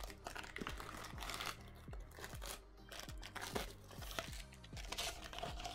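Plastic wrapping crinkling and tearing in quick irregular crackles as a rolled paper print is unwrapped by hand, over soft background music with a steady beat.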